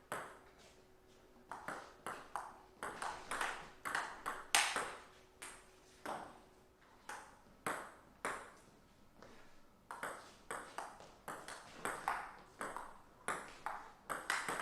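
Table tennis rally: the ball clicking sharply off the table and the rackets, a few hits a second in an irregular back-and-forth, with short lulls between exchanges.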